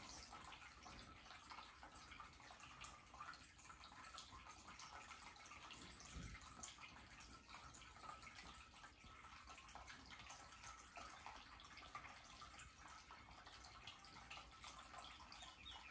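Near silence: faint room tone with scattered tiny ticks and a soft low bump about six seconds in.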